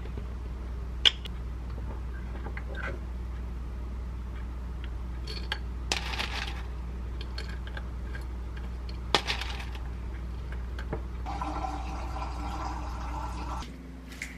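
Food-prep handling: a glass yogurt jar and its lid clicking, and a plastic spoon scooping coconut chunks from a plastic tub into the jar. Sharp clicks, the loudest about a second in and again about nine seconds in, and brief rustles, over a steady low hum that stops near the end.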